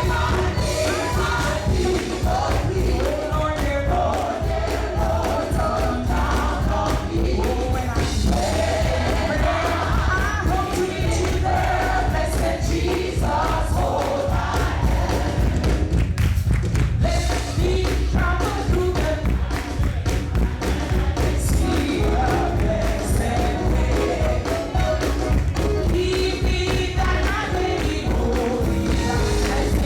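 Live gospel worship music: a group of voices singing over a band with heavy bass and drums.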